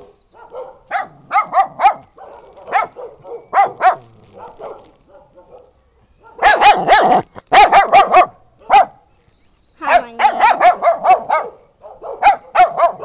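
Small dogs barking: high-pitched yapping in rapid runs, fastest and loudest in the middle and again after a short pause.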